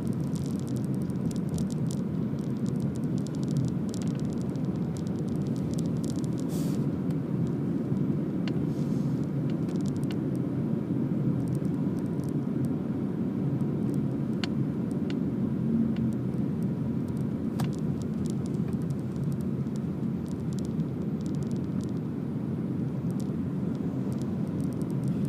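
Steady low rumble of road and engine noise heard inside a moving car's cabin, with a few faint ticks.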